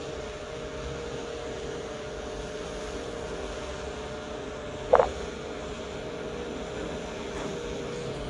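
Viewpro EF210 VTOL drone flying overhead at a distance, its propellers giving a steady hum that wavers slightly in pitch. About five seconds in, a brief sharp sound stands out louder than the hum.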